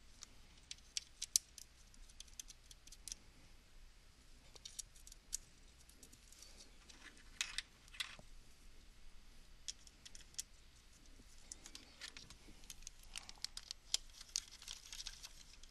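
Faint, scattered small clicks and ticks of Phillips screws and a screwdriver being handled while a Cisco DFC3 daughter card is fastened onto a line card, with a few louder clicks about halfway and a short flurry near the end.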